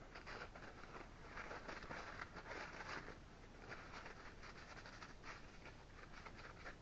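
Faint, irregular rustling and light scraping as small metal parts are handled, just taken out of the ultrasonic cleaner, with a busier stretch about one to three seconds in.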